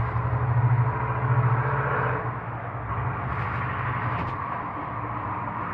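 A steady low rumble and hum with a faint hiss over it, a little louder in the first couple of seconds and easing slightly after.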